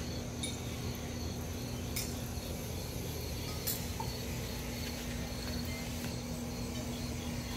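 Outdoor ambience of insects chirring in a fast, even, high pulse over a low steady hum, with three short sharp clicks, one near the start, one about two seconds in and one about three and a half seconds in.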